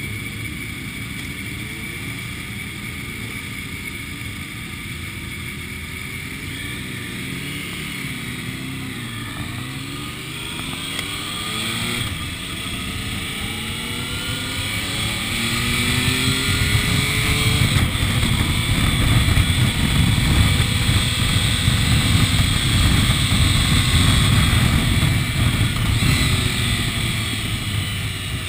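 Triumph Tiger 1050's three-cylinder engine pulling away and accelerating, its note climbing in pitch again and again as it runs up through the gears. About halfway through, a low rushing noise grows louder as speed builds.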